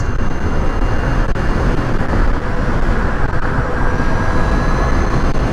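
Steady wind and road rush at freeway speed on a Zero SR electric motorcycle held at full throttle, heavy low buffeting on the microphone. The electric drive itself is nearly silent, leaving only a faint thin high whine above the rush.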